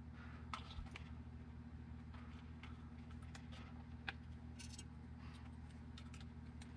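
Faint, scattered light clicks and taps of hands handling small parts and the plastic rear wing of a 1/8-scale RC buggy, over a steady low hum.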